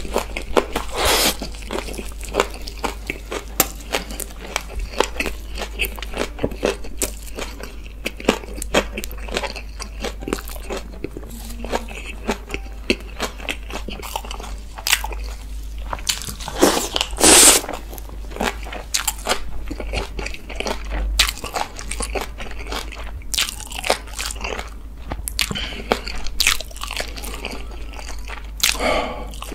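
A person eating close to the microphone: chewing and biting food, with many crisp crunches. The loudest crunches come about seventeen seconds in.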